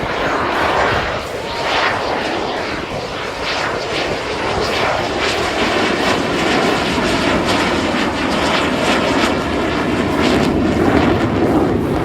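Thunderbirds F-16 fighter jets flying over: a loud, steady rush of jet noise that swells slightly near the end.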